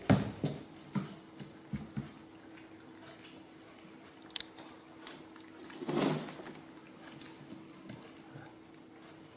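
Sharp knocks and thumps on a steel tabletop, loudest right at the start and a few more in the first two seconds, as baby macaques move about and handle jackfruit; a brief scraping rustle about six seconds in, over a faint steady hum.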